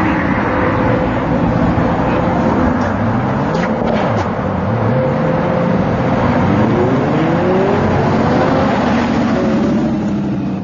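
Bugatti Veyron and Ferrari LaFerrari supercars accelerating hard side by side. Their engine notes repeatedly drop and climb again from about four seconds in as they run up through the gears.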